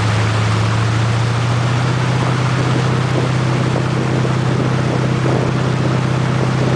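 Motorboat engine running steadily at towing speed, a constant low hum, over the rushing of the churning wake.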